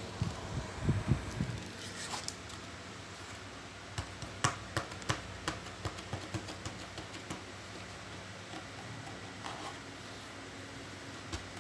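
Handling noise from unpacking a loudspeaker driver: a few low thumps at the start, then a scatter of light clicks and knocks as the speaker and its packaging are moved about.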